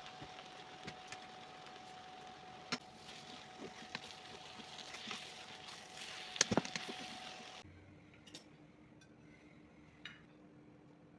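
Food sizzling in a pan, a steady hiss with scattered clinks and knocks of a utensil, the loudest a cluster about six and a half seconds in; the sizzle stops abruptly about seven and a half seconds in, leaving a low hum and a few faint clicks.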